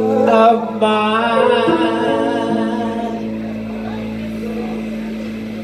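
Woman singing live into a microphone, a long held note with vibrato that fades out about halfway through, over a steady held note from the backing music.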